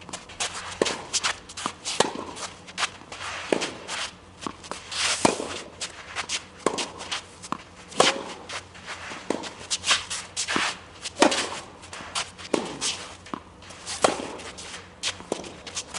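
Tennis rally: a ball struck back and forth with rackets and bouncing on the court, a sharp impact every second or so, with footsteps and shoes scuffing on the court.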